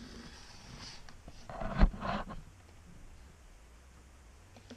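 Handling noise from a cardboard box and its plastic wrap, with one heavy thump about two seconds in as something is set down on a table.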